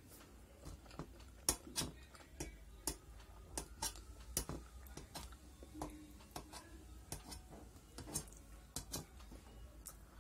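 Metal fork tapping and scraping on a stainless steel plate while pasta is picked up: many sharp, irregular clinks, some with a short metallic ring.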